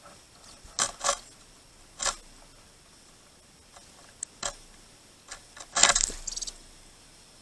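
Sharp taps and knocks from birds at a feeder: a few single taps spaced a second or more apart, then a louder quick flurry of taps about six seconds in.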